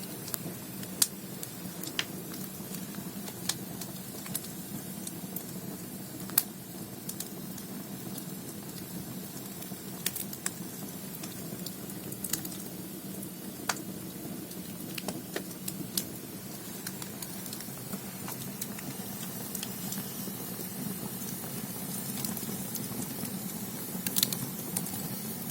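Firewood burning in the firebox of a Korean ondol furnace: a steady low roar of the flames with sharp crackles and pops at irregular intervals.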